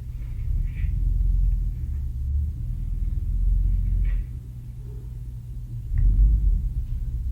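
Low, uneven rumble from the CNC folding machine, with a few faint ticks and a louder swell about six seconds in.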